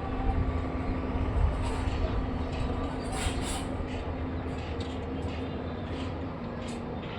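Excavator engine running steadily with a low rumble and a steady hum, with scattered light clicks and knocks over it.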